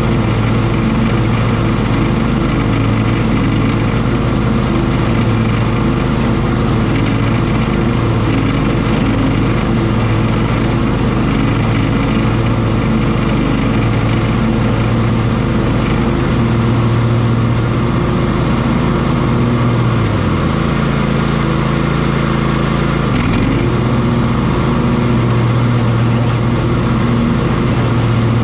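Cub Cadet XT1 ST54 riding lawn mower running steadily while mowing tall, thick grass and weeds. Its engine note dips in pitch about twenty seconds in and comes back up about three seconds later.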